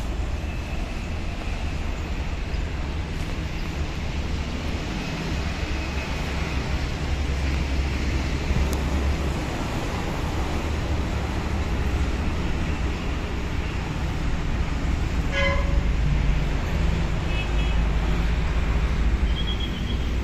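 Electric motor and propeller of a radio-controlled Cessna 182 model plane whining faintly in flight, over a steady low rumble. A brief horn-like toot sounds about 15 seconds in.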